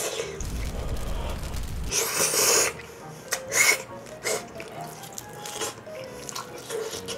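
A man huffing and blowing air out through pursed lips around a mouthful of food that is too hot, in several hissing breaths, the loudest about two seconds in.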